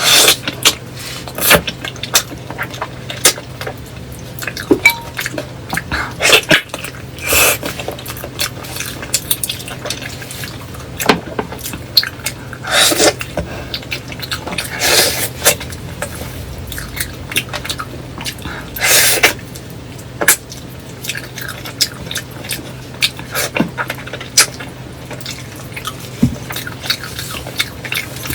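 Close-miked ASMR sounds: irregular clicks, crackles and wet smacking bursts at an uneven pace, a few of them longer, over a faint steady low hum.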